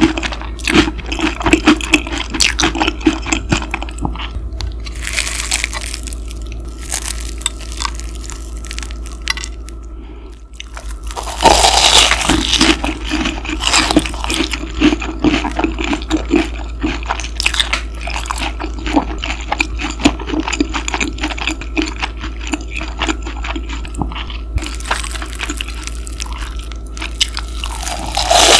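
Close-miked crunching and chewing of a crispy panko-breaded pork cutlet (donkatsu), dense crackles with a few louder crunching bites. A steady low mechanical hum runs underneath: the machine noise that was recorded by mistake.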